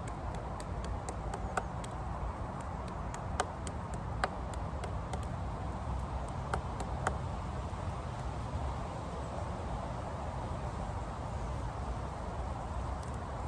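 A wooden walking stick knocking on fresh nettle stems laid on a log, a string of irregular light taps over the first seven seconds or so. The stick is flattening the stubborn nodes along the stems. A low background rumble runs underneath.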